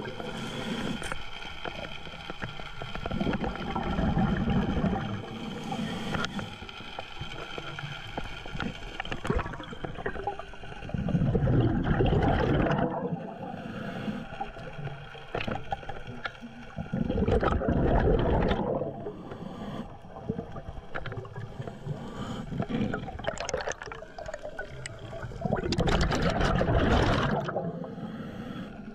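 Scuba diver breathing through a regulator underwater: a rush of exhaled bubbles gurgling past about every six to eight seconds, with a quieter hiss between breaths.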